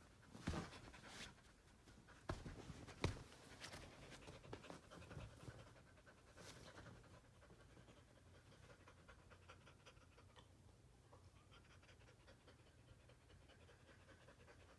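Dog panting quickly and faintly while it humps a plush toy. A few sharp knocks and rustles of movement come in the first few seconds, the loudest about three seconds in.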